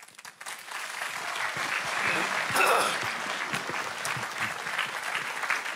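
Large audience applauding: a dense clapping that starts at once, swells over the first two or three seconds and then carries on steadily.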